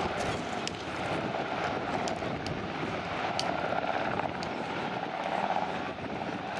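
Sikorsky S-92 helicopter flying low, its main rotor and twin turboshaft engines making a steady drone.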